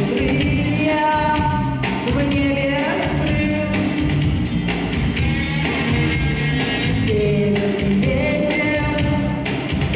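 Folk-rock song: a woman singing long held notes over a full band.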